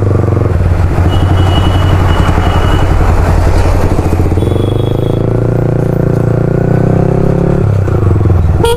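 Motorcycle engine running while riding. The revs climb from about four and a half seconds in and ease off shortly before the end, where a sharp click sounds.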